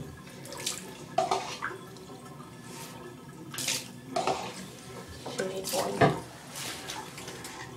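Water splashing and dripping in a bathtub while a cat is being bathed, with several short, irregular splashes.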